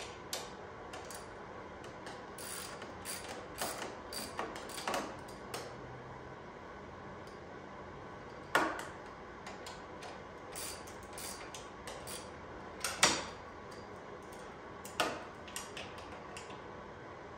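Hand socket ratchet clicking in short, irregular runs while bolts on a motorcycle exhaust are tightened, with a few louder single metal clicks.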